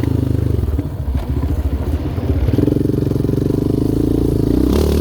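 Yamaha Raptor 700R quad's single-cylinder engine running while being ridden, a fast steady beat that gets a little louder about halfway through.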